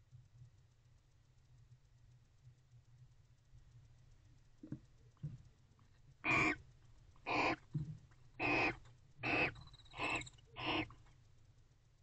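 Barn owl giving a run of six short, harsh hissing calls, about one a second, starting about six seconds in, after a couple of faint scratches.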